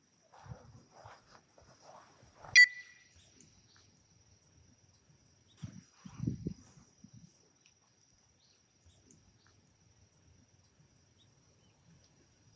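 Quiet outdoor golf-course ambience: a thin, steady high insect trill and low rumbles of wind on the microphone, louder about six seconds in. About two and a half seconds in there is a single sharp metallic clink with a brief ring, the loudest sound.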